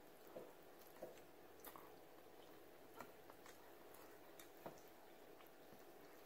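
Near silence, with a few faint soft clicks and quiet chewing as someone eats with their fingers, picking meat from a dish.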